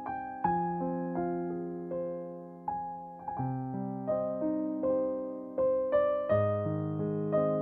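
Background piano music: an unhurried melody of struck notes, each ringing and fading before the next.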